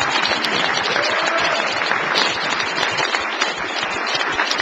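A banquet audience applauding, many hands clapping at once in a dense, steady patter.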